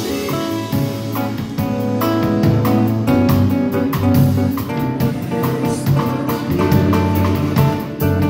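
Nylon-string electro-acoustic guitar being played: plucked notes and chords in a flowing pattern.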